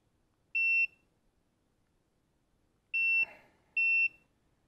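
Three short, steady, high-pitched electronic beeps from the Craftsman Pro Series 19745 clamp meter's beeper: one about half a second in, then two close together about three seconds in. Each confirms a button press sent remotely from the phone app over Bluetooth.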